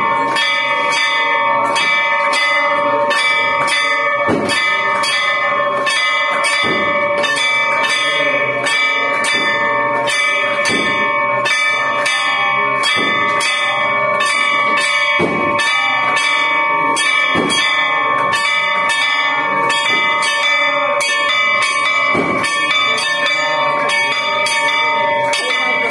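Temple bell and a hanging brass gong ringing without pause for an aarti. Rapid clanging strokes keep a steady metallic ring going, and heavier strokes land about every two seconds.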